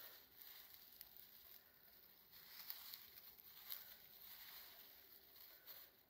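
Faint rustling and small crackles as gloved hands sift through dry debris from an old hive's comb and the leaf litter beneath it.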